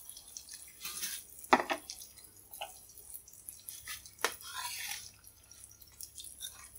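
Metal spatula knocking and scraping in a frying pan as fried tofu is lifted out of the hot oil onto a plate: a few sharp knocks, the loudest about a second and a half in, over a light sizzle of oil.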